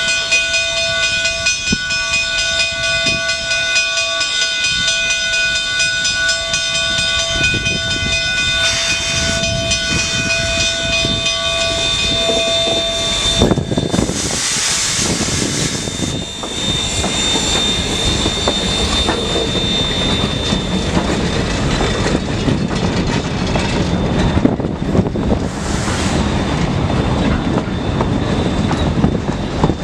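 Durango & Silverton narrow-gauge train rolling past, its wheels clattering over the rail joints. For the first dozen seconds a steady ringing tone of several pitches sounds over it and then stops suddenly, followed by a loud hiss about 14 seconds in.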